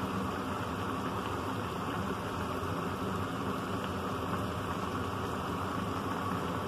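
Broth in a clay-pot hot pot boiling steadily, a continuous bubbling hiss.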